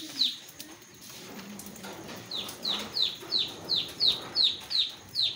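A chick peeping: a run of short, high, falling peeps, about three a second. They break off near the start and start again about two seconds in.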